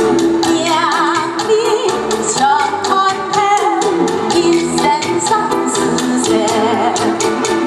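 A woman singing a Hakka song through a handheld microphone over amplified backing music with a steady beat, her held notes wavering with vibrato.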